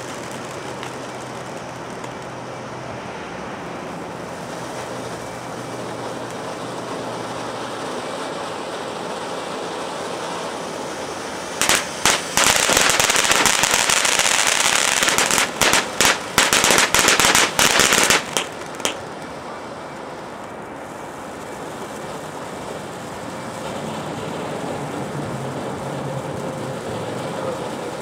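Phantom Fireworks Golden Pine Forest fountain firework hissing steadily as it sprays sparks. About twelve seconds in it breaks into loud, dense crackling for about seven seconds, then goes back to a steady hiss.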